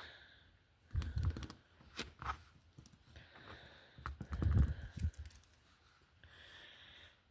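Light clicking and tapping of small slot-car parts and tools being handled, in two short bursts: one about a second in, a busier one about four seconds in.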